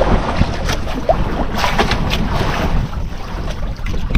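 Wind rumbling on the microphone over sea and boat noise aboard a small wooden outrigger fishing boat, with a few light knocks scattered through.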